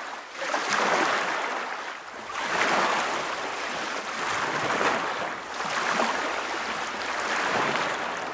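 Ocean waves washing: a steady hiss of water that swells and fades every couple of seconds.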